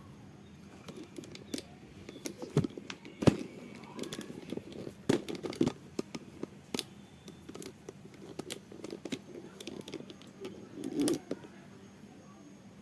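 Irregular clicks, knocks and rattles of hand work with tools and parts, with a sharp knock about three seconds in and a denser burst of handling noise near the end.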